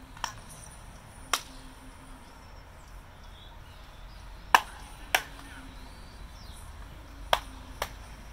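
Baseballs smacking into leather gloves during a game of catch: six sharp pops in three pairs, the loudest about halfway through.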